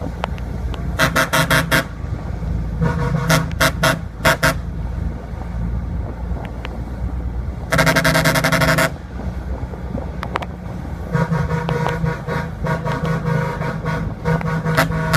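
Vehicle horn being tested: several runs of quick, stuttering toots, and about eight seconds in one solid blast of about a second, with an engine running steadily underneath.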